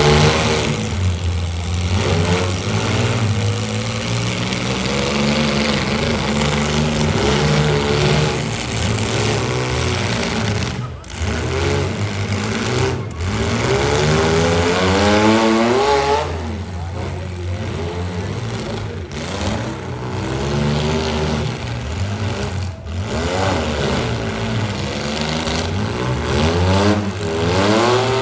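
Demolition derby cars' engines running and revving, their pitch rising and falling again and again over a steady low drone.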